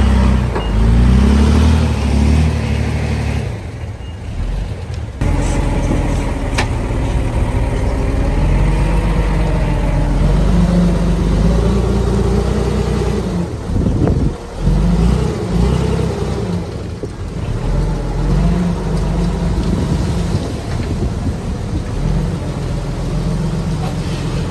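Diesel engine of heavy earthmoving equipment running under load, its revs rising and falling, easing off briefly a few seconds in and again about halfway through.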